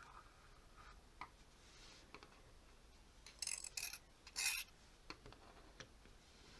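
Tiny miniature knife scraping across a tabletop in two short rasping scrapes a little past halfway, among faint taps and clicks of a small plastic cutting board being handled.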